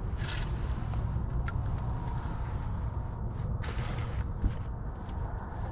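A steady low rumble with a few brief rustling noises, one just after the start and a longer one a little past halfway, as fishing line and gear are handled at the ice hole.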